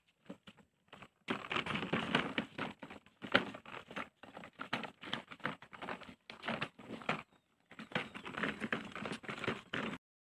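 Hard plastic wheels of a child's ride-on toy motorbike crunching and rattling over gritty dirt, a dense run of clicks and crackles with a short break about seven seconds in. It stops abruptly near the end.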